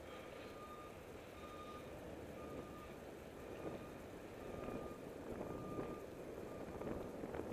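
A vehicle's reversing alarm beeping about once a second, each beep short and steady in pitch, over wind and road noise from riding a bicycle.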